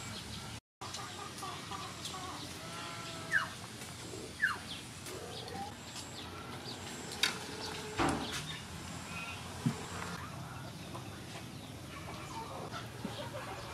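A few short, falling bird calls in the background, with several sharp clicks of metal tongs handling pork skin in a stainless steel colander.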